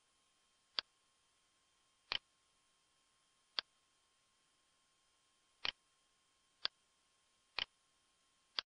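Computer mouse clicking: seven sharp clicks at uneven intervals, some in quick pairs, over a faint steady hiss.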